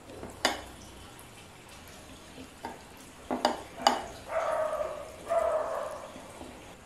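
Ceramic dishes clinking as a bowl of curry is tipped onto a plate of rice and food is handled by hand: three sharp clinks. These are followed, about four and five seconds in, by two drawn-out rough sounds, each lasting well over half a second.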